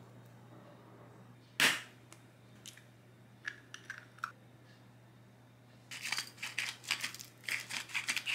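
A single sharp crack of an egg being cracked about a second and a half in, a few light clicks, then a hand salt grinder being twisted, a fast dry clicking grind in two bursts near the end.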